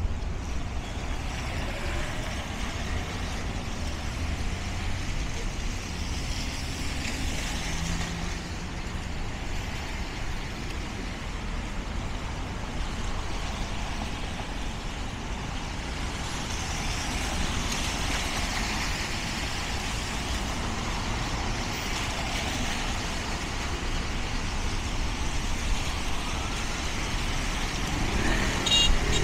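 Midtown street traffic: cars, trucks and buses passing with engine rumble and a steady hiss of tyres on wet pavement. A brief high-pitched squeal comes near the end.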